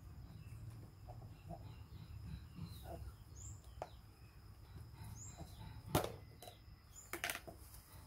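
Sharp plastic clicks and knocks as a monkey works the red screw lid off a plastic cookie jar, the loudest about six seconds in and a quick pair about a second later. Faint high chirps recur every second or two behind them.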